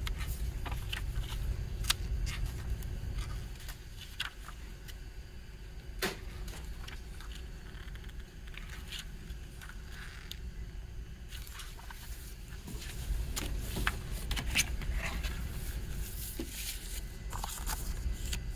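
Paper rustling and light taps as a CD's printed insert and lyric booklet are handled and their pages turned, with scattered short rustles and clicks over a steady low background rumble.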